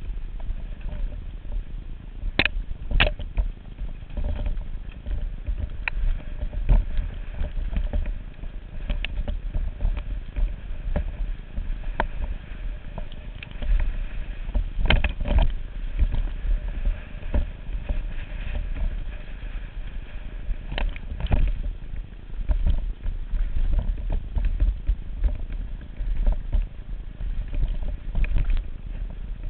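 Mountain bike ridden fast down a rough trail, heard from a helmet-mounted microphone: a steady low rumble of wind buffeting, with the bike rattling and knocking over roots and rocks and sharp clacks now and then.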